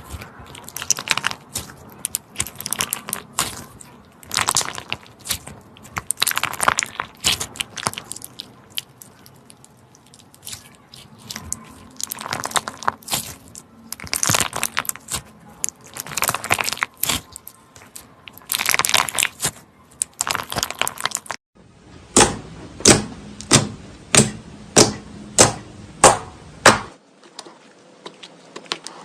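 Hands squeezing and pressing slime, with irregular crackling and crunching in waves. After a cut about three-quarters of the way through comes a run of sharp, evenly spaced pops, about three every two seconds.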